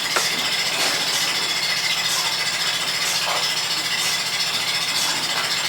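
Dairy milking machine running: a steady hum from the vacuum pump, with a regular pulse about every 0.7 seconds from the pulsators.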